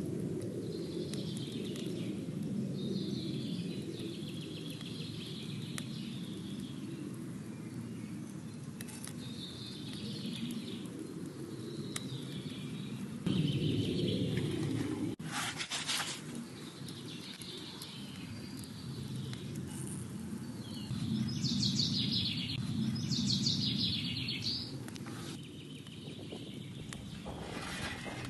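Small birds chirping and twittering on and off over a steady low background rumble, with the busiest chirping near the end.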